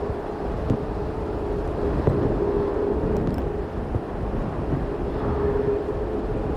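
Boeing 737 MAX 8's CFM LEAP-1B turbofan engines running with a steady whine, over wind buffeting the microphone.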